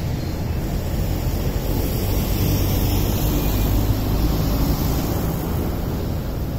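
Wind buffeting an open-air phone microphone: a steady rushing low rumble that swells slightly in the middle.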